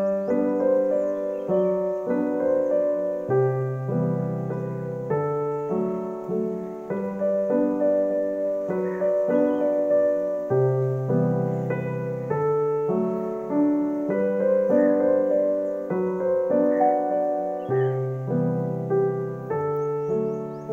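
Background music: a gentle, repeating piano-like instrumental melody.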